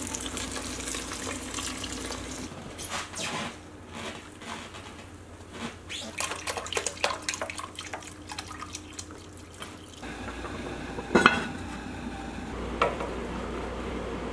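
Liquid being poured and splashing into an enamelled pot of onions and pork: beer, then broth from a carton, in many short splashes. Two sharp knocks near the end, the first the loudest.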